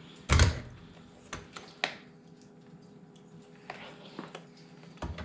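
A knock, then scattered sharp metallic clicks from a wrench working a dishwasher's stiff leveling leg.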